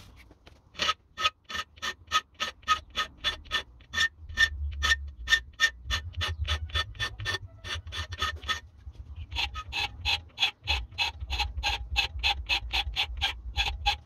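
Hand file rasping across the spine of a leaf-spring steel knife blade clamped in a vise, in quick even strokes about four a second, each stroke making the blade ring. The strokes pause briefly about nine seconds in, then carry on.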